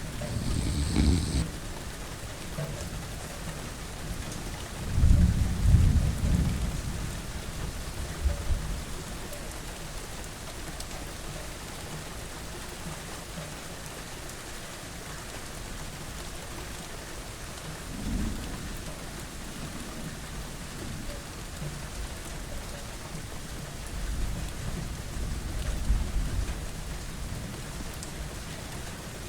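Steady rain with deep rolls of thunder coming and going. The loudest roll is about five to seven seconds in, with smaller ones near the start, around eighteen seconds and toward the end.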